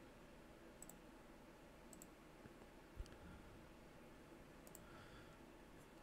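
Near silence with a few faint computer mouse clicks, about one, two and nearly five seconds in, and a soft low thump around three seconds in.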